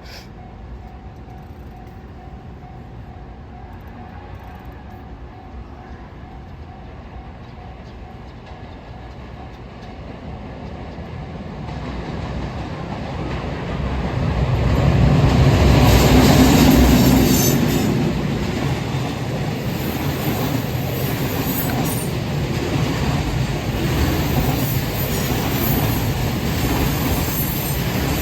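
EF210 electric locomotive hauling a freight train past a level crossing: the rumble builds from about ten seconds in and peaks as the locomotive goes by, then settles into a steady rumble and clatter of wagons rolling past.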